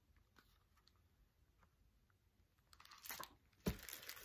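Near silence, then about three seconds in a brief rustle of paper and a single soft knock as a picture book is handled.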